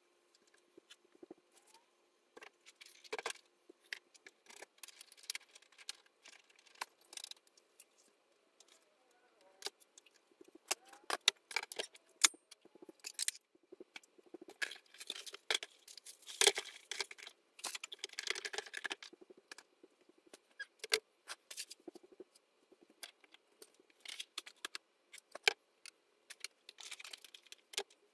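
Clatter and rustling of small items being handled and set down on a tabletop: a quick, irregular run of clicks, knocks and rattles, busiest in the middle.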